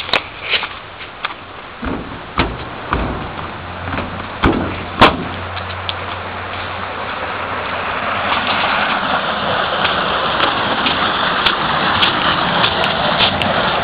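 Footsteps crunching on gravel and dry leaves, with a few sharp knocks, then a steady rush of flowing water from the irrigation canal that grows louder from about halfway through.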